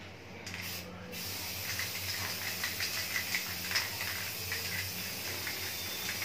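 Aerosol spray can of clear top-coat paint hissing: a short burst about half a second in, then steady spraying from about a second in.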